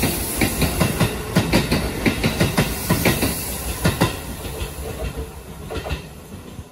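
Shin-Keisei Line electric commuter train pulling out and passing close by, its wheels clacking in quick, regular beats over the rail joints. The clatter thins out about four seconds in as the last car goes by, and fades as the train moves away.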